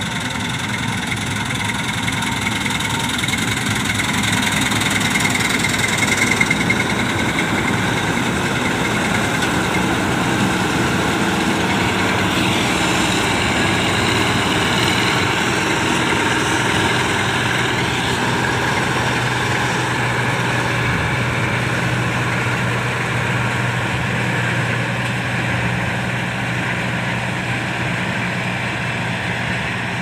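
Combine harvester running steadily while cutting wheat, its engine and threshing machinery giving a continuous loud drone. A low hum in it grows stronger about halfway through.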